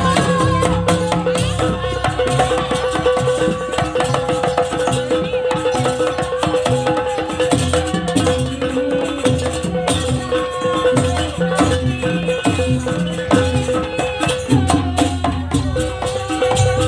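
Live jaranan accompaniment music: drums and pitched metal percussion playing a dense, fast rhythm with low thuds, over a steady held high note that runs throughout.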